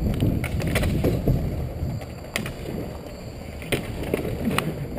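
Skate wheels rolling and striding over an outdoor rink's hard surface, a steady rumble with a few sharp clacks.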